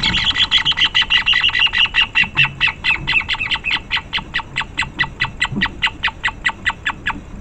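Pale-legged horneros calling during a squabble between two birds: a long, rapid series of loud repeated notes that gradually slows and stops about seven seconds in.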